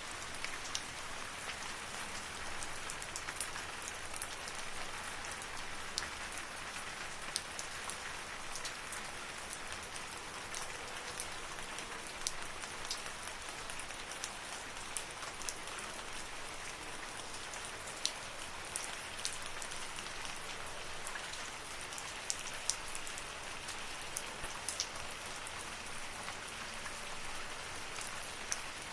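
Steady rain falling in a forest: an even hiss with many separate drops ticking close by.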